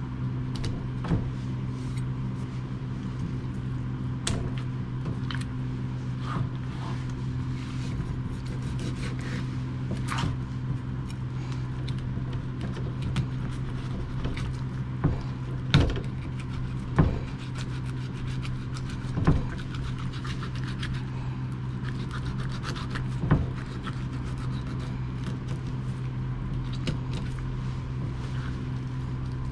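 Knocks and scrapes of a Korean rockfish being handled on a plastic cutting board while it is filleted. The sharpest knocks come in the second half, over a steady low hum.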